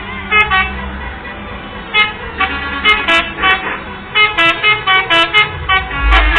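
Telolet bus horns, the multi-tone musical air horns of Indonesian coaches, playing a quick run of short pitched toots. Several notes sound at once, coming faster in the second half, over a low engine rumble.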